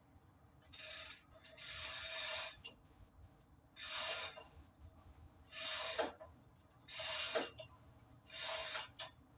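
Repeated hand rasping strokes, six in all, each about half a second to a second long with short pauses between, like a file or abrasive being worked back and forth over a part.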